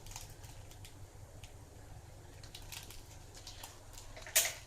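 Faint, irregular small clicks and scrapes of hands working with the cheese, with one louder sharp click near the end.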